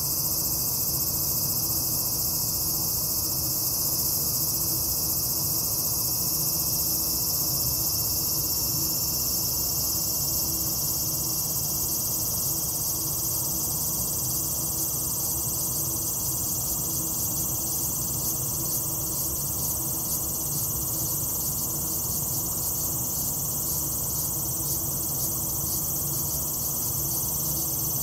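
Dense chorus of summer insects: a continuous high-pitched buzz that never breaks, over a low steady background rumble.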